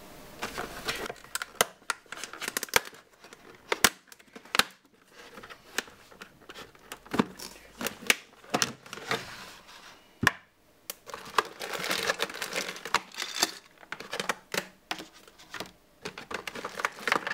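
Stiff clear plastic packaging and plastic bags handled by hands: crinkling and crackling with many sharp clicks, as a fishfinder and its cables and parts are taken out of a clamshell pack.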